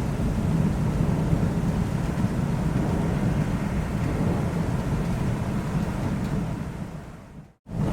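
Steady low rumble of thunder with rain. Near the end it fades away into a brief moment of silence.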